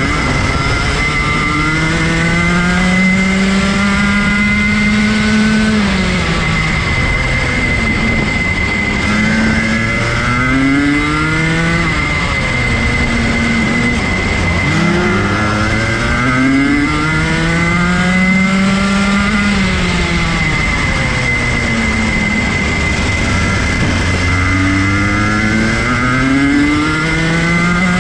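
Rotax Junior Max 125 cc two-stroke kart engine heard on board at racing speed. The revs climb for several seconds and then drop off, about four times, as the driver goes between straights and corners. A steady high whine and a rush of noise sit underneath.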